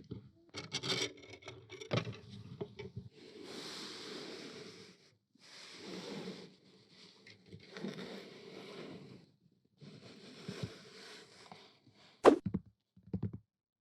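Scraping or rubbing on a hard part by hand: a few light clicks and knocks, then four drawn-out scraping strokes of a second or two each, and one sharp knock near the end.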